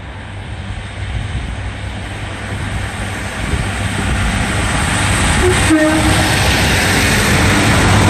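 Class 150 Sprinter diesel multiple unit pulling away and passing close by. Its underfloor diesel engine is running under power over steady rail noise, growing louder as it nears.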